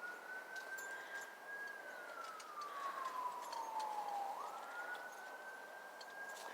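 Siren wailing: its pitch rises, holds, then slides slowly down over a couple of seconds before climbing back up about four seconds in and holding again.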